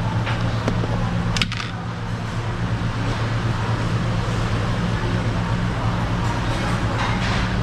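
A steady low machine hum under constant background noise, with a single sharp click about a second and a half in.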